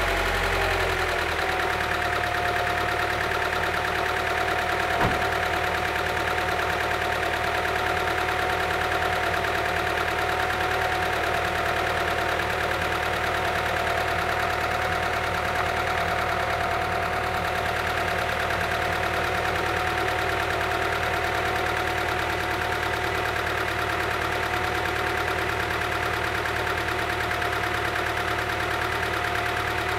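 1998 Honda Prelude's H22 four-cylinder VTEC engine idling steadily, semi-warm, with a rapid valvetrain ticking that is still there after a valve adjustment. A single click about five seconds in.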